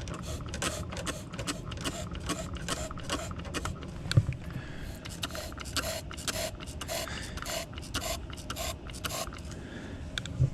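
Repeated scraping and rubbing strokes of cleaning up at a furnace, with one louder knock about four seconds in.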